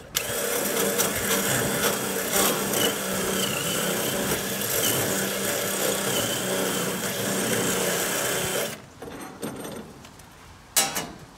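Cordless drill running steadily with a very small bit, drilling a pilot hole through a grill's metal burner tube. It runs for about eight and a half seconds and stops, and a single sharp click follows near the end.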